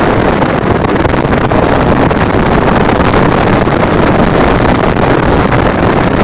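Steady, loud rush of wind buffeting the microphone together with the running noise of a vehicle moving along a runway.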